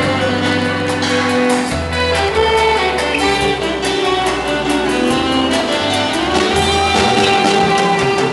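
Live instrumental music: a melody played over strummed chords and a bass line that changes note about every second.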